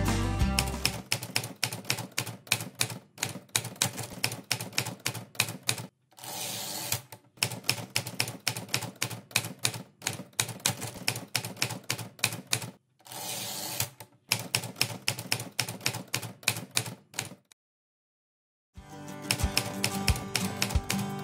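Typewriter sound effect: rapid key strikes, several a second, as text is typed out, twice broken by a longer sliding sweep about a second long. The strikes stop for about a second near the end, then resume over background music.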